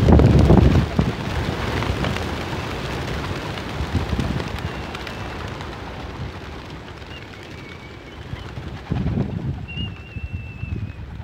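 Hundreds of racing pigeons taking off at once from their transport crates. A loud rush of flapping wings comes in the first second, then thins and fades over several seconds as the flock flies away.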